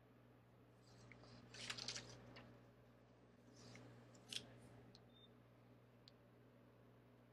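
Near silence: faint room tone with a steady low hum. A short patch of faint crackling clicks comes about two seconds in, and one sharper click a little after four seconds.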